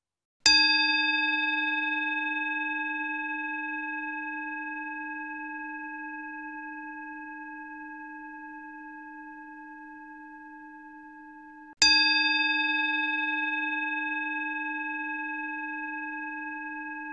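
Tibetan singing bowl struck twice, about eleven seconds apart. Each strike rings with a low hum and several higher overtones that fade away slowly.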